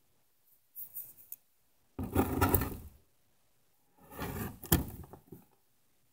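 Handling noises close to the microphone as a pair of tongs picks up a small piece of freeze-dried cricket: a brief faint rustle, then two loud bouts of scraping and rubbing of about a second each, the second with a sharp click.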